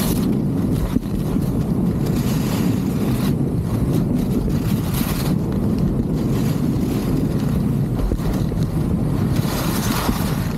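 Wind rumbling on a helmet-mounted camera's microphone during a downhill ski run, with a hiss that swells and fades a few times.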